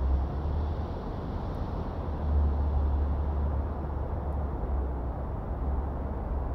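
Steady low rumble and hiss aboard a moving river tour boat, growing heavier about two seconds in.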